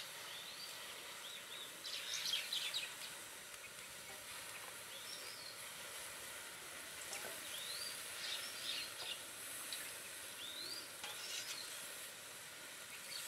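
Birds calling in short rising chirps and twittery bursts several times, over a faint steady hiss.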